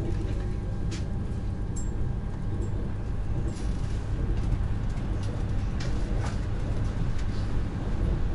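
Inside a Lastochka (Siemens Desiro RUS, ES1) electric train: a steady low rumble with a faint steady hum and a few sharp clicks at irregular moments.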